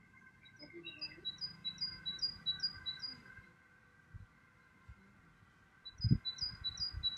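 A small songbird singing a quick series of repeated two-note phrases, about three a second, in two runs with a pause between. A low thump about six seconds in is the loudest sound.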